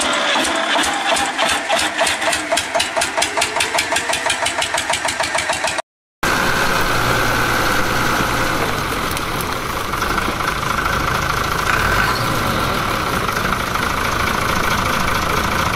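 An old Fiat tractor's diesel engine chugging, its beats quickening as it picks up speed. After a brief break, a Fiat 140-90 Turbo DT six-cylinder turbo-diesel tractor running steadily with a Pezzolato PTH 500 wood chipper driven off it, a steady hum under a steady whine.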